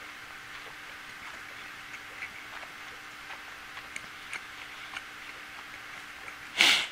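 A person chewing food with closed mouth, small wet mouth clicks and ticks scattered over a steady faint room hiss. Near the end comes one short, loud, breathy hiss of air.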